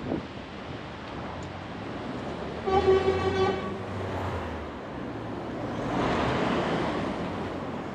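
Street traffic with a single vehicle horn honk lasting about a second, a few seconds in. Near the end a vehicle passes close by, its noise swelling and fading.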